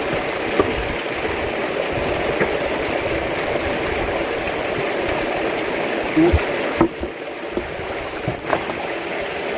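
Steady rush of running water, with a few soft knocks about six to seven seconds in.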